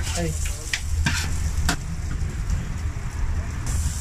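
Metal spatula scraping and tapping on a flat steel taco griddle, with a few sharp strokes, over meat sizzling on the hot griddle and a steady low rumble.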